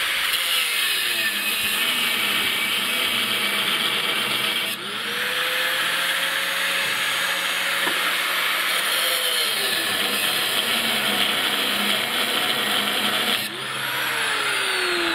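Skil angle grinder cutting into steel rebar tied in a reinforcement cage, with a steady high grinding whine. About five seconds in, and again near the end, the sound eases off briefly and the motor's pitch drops and climbs back. In the last second or so the pitch falls away.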